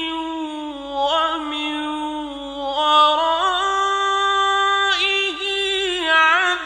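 Male Quran reciter's voice in slow, melodic tajweed recitation, drawing out the vowels in long ornamented notes that step up in pitch about three seconds in.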